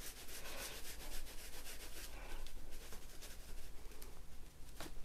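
Seasoning rattling in a spice shaker as it is shaken quickly over raw chicken, several shakes a second.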